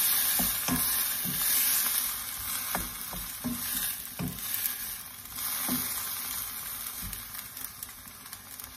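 Cubes of pork in soy sauce sizzling in a non-stick wok while a wooden spatula stirs them. The spatula knocks irregularly against the pan, and the sizzle is loudest in the first few seconds.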